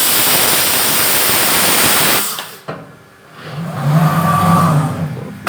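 Hinge-mounting machine's compressed air hissing loudly for about two seconds, then cutting off. About a second later a motor hums steadily for under two seconds.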